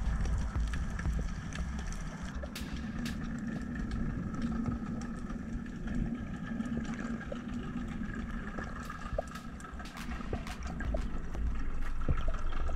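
Underwater ambience recorded by a camera in its housing: a low water rumble with scattered sharp clicks and crackles and a faint steady hum.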